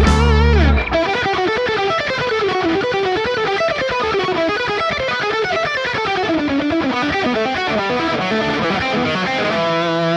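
Rock background music: the bass and drums drop out about a second in, leaving a fast guitar line running up and down in quick notes.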